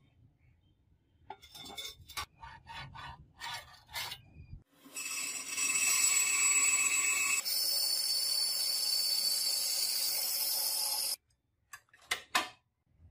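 A few short scraping strokes, then a power saw cutting through a brass sheet: a loud, steady, high-pitched whine for about six seconds that cuts off suddenly, followed by a couple of light clicks.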